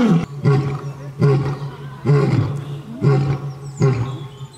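Male lion roaring: the end of a roaring bout, a series of about six short, deep grunting roars, each one starting abruptly and fading, a little under a second apart.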